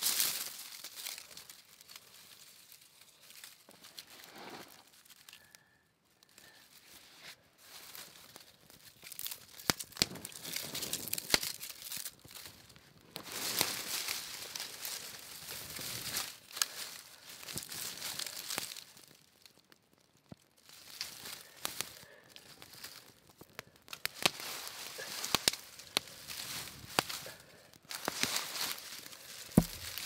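Crinkling and rustling in irregular bursts, with sharp clicks and short pauses.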